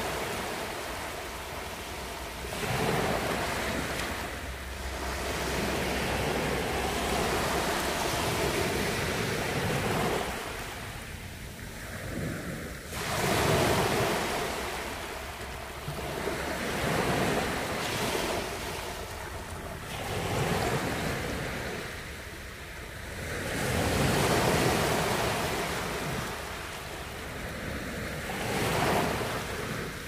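Small sea waves breaking and washing up a beach, the surf swelling and fading every four to five seconds.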